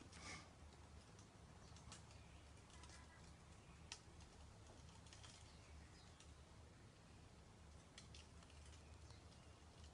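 Near silence: faint room tone with a low hum and a few soft isolated clicks, the clearest about four seconds in.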